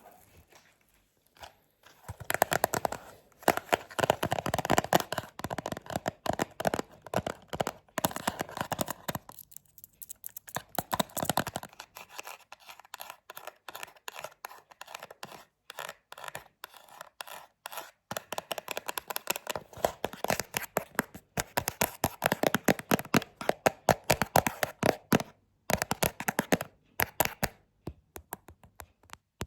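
Close-miked rapid tapping and knocking on a surface, many quick taps a second, coming in bursts with brief pauses and a softer stretch about midway.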